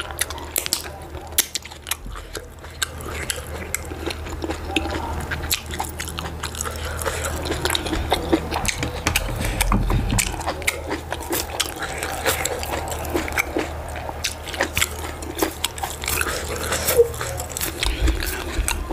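Close-miked eating sounds: wet mouth clicks and smacking as soup is sucked off the fingers and soft food is chewed. About ten seconds in, a lump of sticky fufu is pulled off by hand.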